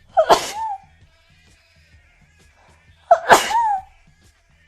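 A person sneezing twice, about three seconds apart. Each sneeze is a sudden loud burst of breath with a high-pitched cry that rises and falls.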